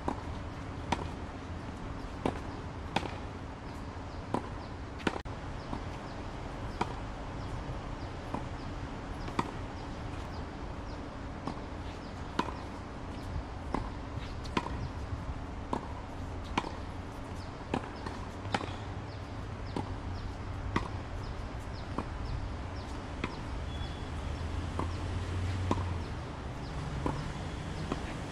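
Tennis balls popping off racket strings and bouncing on a hard court during a rally, a sharp pop every second or two, over a steady low hum.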